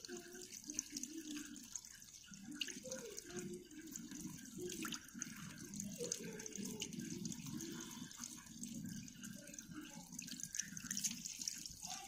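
Tap water running into a washbasin and splashing over hands as a small plastic washing-machine inlet filter is rinsed under the stream, with a few small clicks and splashes from the handling.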